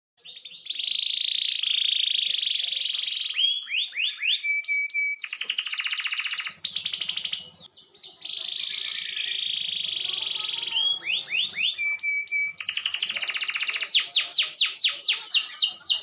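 Domestic canary singing a long, loud song: rapid trills and buzzy rolls, quick runs of downward-sweeping notes and a held whistled note, with a brief pause about halfway. Near the end it repeats one sweeping note about five times a second.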